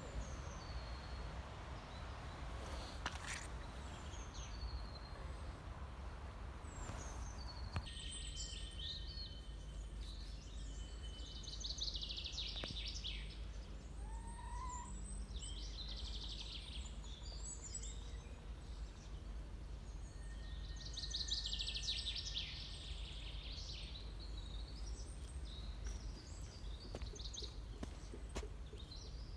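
Small birds chirping and trilling over a steady low background rumble, with the loudest trills about twelve and twenty-one seconds in.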